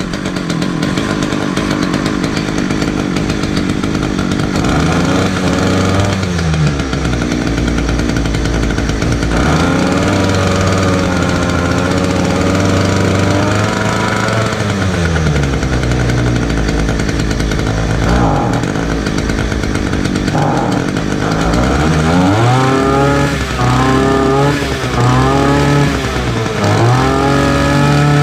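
Titan petrol multi-tool's two-stroke engine running just after a choke start, revved up and down again and again, its pitch rising and falling, with quicker, higher revs toward the end. It runs on new fuel lines and a new spark plug.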